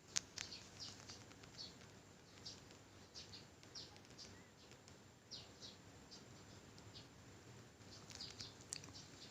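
Near silence, broken by a single click just after the start and then faint, short, high chirps that dip in pitch, about one a second.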